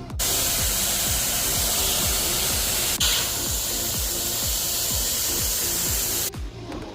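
Steady hiss of a spray nozzle cleaning an air-conditioning unit's coil, cutting off suddenly about six seconds in, over background music with a steady beat.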